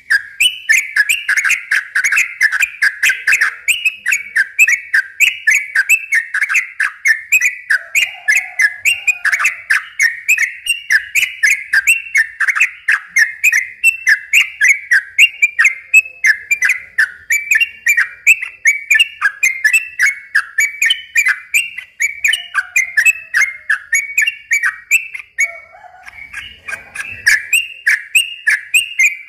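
Yellow-vented bulbul (trucukan) singing a long, fast run of sharp, chattering whistled notes, several a second, with hardly a break. The song pauses briefly a few seconds before the end and then starts again.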